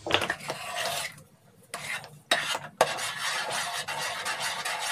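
Metal spoon scraping and stirring thick cornflour halwa paste around a stainless steel pan. The stirring stops briefly about a second in, there are two sharp clinks of metal on the pan near the middle, and then steady scraping resumes.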